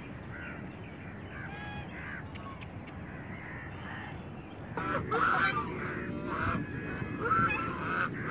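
A flock of white domestic geese honking. Scattered, softer calls come first, then loud, repeated honking starts about five seconds in.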